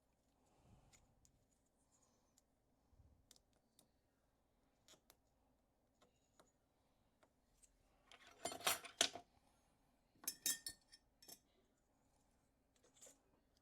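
Small metal clicks and clinks of hand tools and shim stock working against the parts of a Goal D9 lock being taken apart, with a burst of louder metallic scraping and clinking a little past halfway and another shortly after.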